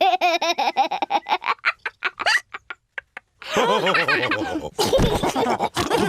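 Cartoon characters' wordless voices laughing, broken midway by a run of short quick sounds and a second of silence before the laughter picks up again.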